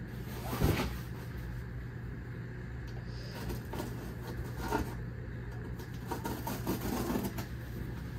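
A cardboard shipping box thumps once as it is set on end about a second in, followed by scattered scraping and rustling of cardboard and packing tape as the tape is cut open. A steady low hum runs underneath.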